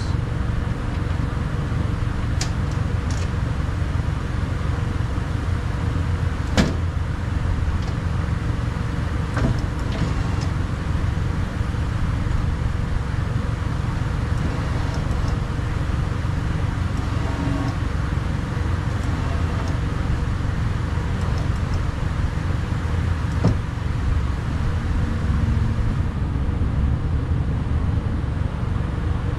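A steady low hum, with a few short metallic clicks and taps from hands working parts inside the hollow steel shell of a truck door.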